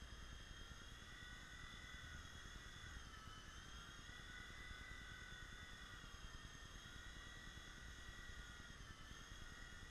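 WL911 micro RC helicopter's small electric rotor motors whining at a steady high pitch, dipping briefly about three seconds in and again near the end.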